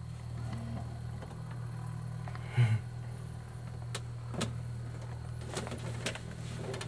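A light tow plane's engine running at low power a short way ahead, a steady low drone, as it takes up the slack in a glider's tow rope. A brief louder blip comes about two and a half seconds in, and a few faint clicks in the second half.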